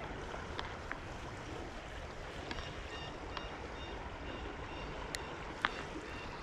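Creek water flowing in a steady rush, with a few small sharp clicks and some short high chirps over it.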